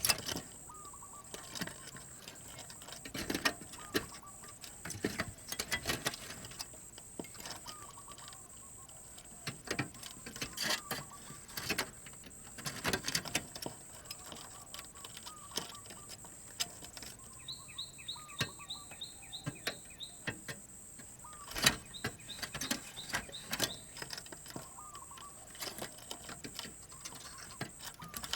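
Spotted dove cooing in short phrases repeated every couple of seconds. A small bird gives a rapid chirping trill about two-thirds of the way through. Scattered sharp clicks and a steady high-pitched tone run underneath.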